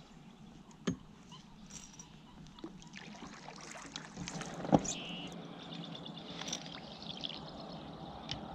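Water trickling and lapping around a fishing kayak, with a sharp knock about a second in and a louder one a little past the middle.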